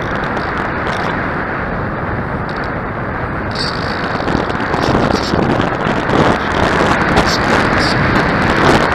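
Wind buffeting the microphone, a rushing noise that grows stronger and gustier about halfway through.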